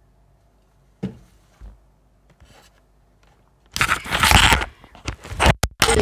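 Microphone being handled as it is switched back on. A click about a second in is followed by a few faint rustles. Loud scraping and rubbing on the mic starts just before four seconds in, with brief cut-outs near the end.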